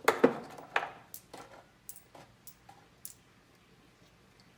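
Small steel pieces being handled and set down on a workbench: a few sharp metal knocks and clinks in the first second and a half, then a few faint ticks.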